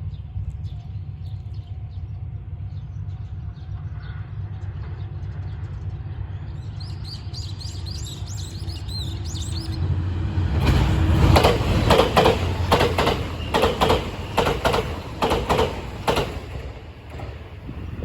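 HC85 hybrid diesel train passing at speed. Its low rumble builds, then its wheels clatter over the rail joints in a quick, even rhythm for about six seconds before fading away.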